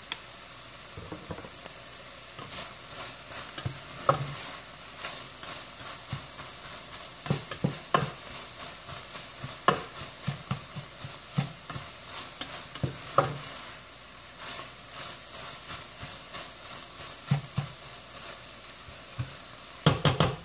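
Ground chicken sausage and vegetables sizzling in a stainless steel pan while a spatula stirs and scrapes through them, knocking irregularly against the pan. There is a quick run of knocks near the end.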